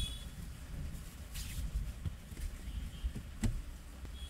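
Rain falling on a car, heard from inside the cabin: scattered taps of drops over a steady low rumble, with one sharper tap about three and a half seconds in.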